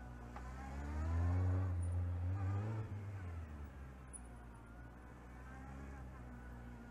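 Kawasaki Z750 motorcycle engine revving up hard under acceleration through the cone course, then the revs drop away about three seconds in. It runs at lower revs for a few seconds before climbing again near the end.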